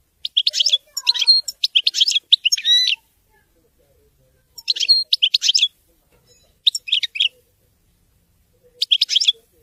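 European goldfinch singing: a long phrase of rapid, high twittering notes, then three shorter bursts of the same twitter, the last near the end.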